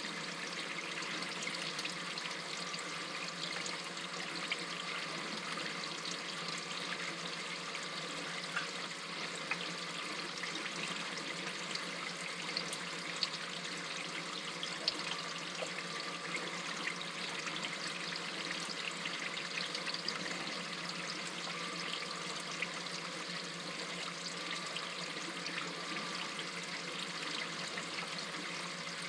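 Water trickling and splashing steadily in an aquarium sump, with many small drip-like ticks scattered through it.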